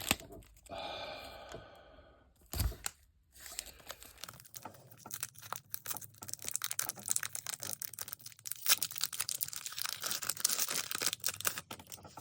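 Foil booster pack of Pokémon cards being torn open, with a drawn-out rip about a second in. From about three seconds in, the foil wrapper crinkles and rustles continuously as the cards are pulled out and handled.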